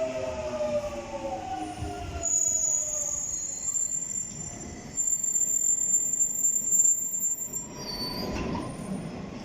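London Underground Jubilee line train coming into the platform: its motor whine falls in pitch as it slows. About two seconds in, a high, steady squeal starts and runs for about five seconds.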